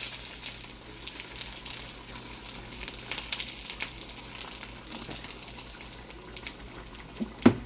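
Potatoes and beef sausages frying in olive oil in a small pan: a steady sizzle with frequent crackling spits of hot oil. A single sharp knock near the end.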